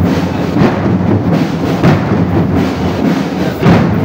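Military marching drum band playing, with the bass drums prominent in a steady beat of strikes about two-thirds of a second apart.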